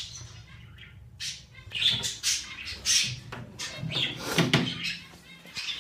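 Small cage birds chirping, short high calls coming about once or twice a second, with a brief handling noise about four seconds in.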